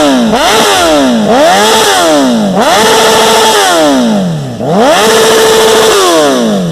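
Honda CBR1000RR Fireblade inline-four revved hard and loud through a Hurricane HF1 stainless-steel aftermarket exhaust. There are quick blips in the first couple of seconds, then two longer revs held briefly at high rpm, each falling away between them.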